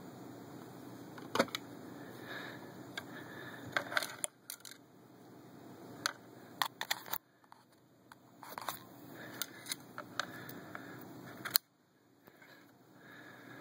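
Plastic clicks and knocks from handling an Ares MK43 airsoft M60's stock and battery compartment: the cover being worked and the battery wiring moved about. Irregular sharp clicks over a steady hiss, the loudest knock near the end.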